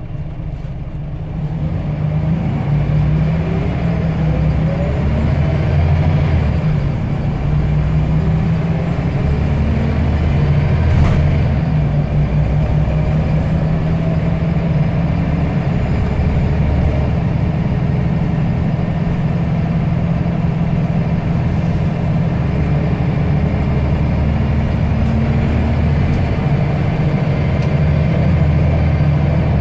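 Scania L94UB single-deck bus's diesel engine running under way, its note and loudness rising over the first few seconds as the bus picks up speed, then running steadily. A single sharp knock about eleven seconds in.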